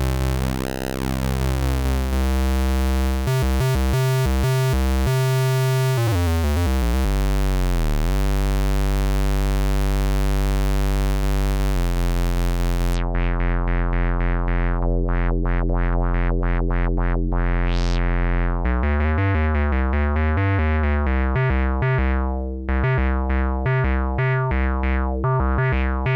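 Behringer MS-1 analog monophonic synthesizer (a Roland SH-101 clone) playing fat low sustained notes, with its filter wide open and a pitch glide dropping about 6 to 8 seconds in. From about halfway its filter closes down, and a resonant filter sweep rises and falls. Near the end come fast, short, repeated notes with the filter opening and closing.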